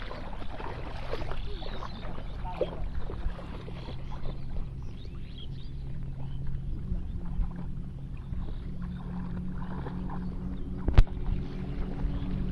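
Shallow muddy water splashing and sloshing irregularly as a person wades and gropes with bare hands along the bottom for fish. A low steady drone runs underneath, stronger from about a third of the way in, and one sharp knock comes near the end.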